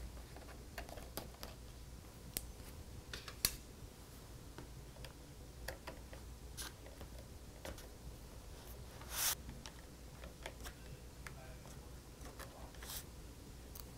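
Faint, scattered small clicks and ticks of a precision screwdriver working tiny screws out of the side edges of an aluminium MacBook Pro case, with one louder click about nine seconds in.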